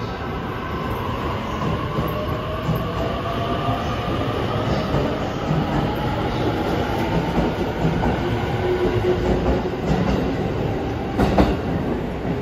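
E257 series 500 electric train pulling out of the station: its motors' whine rises steadily in pitch as it gathers speed, over the rumble of the cars. A sharp knock comes about eleven seconds in.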